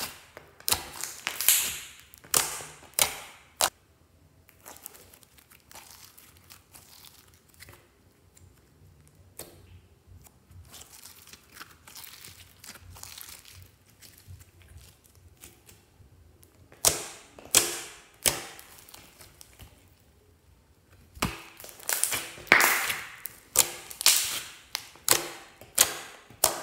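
Glossy slime being stretched, pressed and kneaded by hand: sticky squishing with sharp clicks and crackles. It comes in bouts, at the start, again a few seconds past the middle and through the last several seconds, and is faint in between.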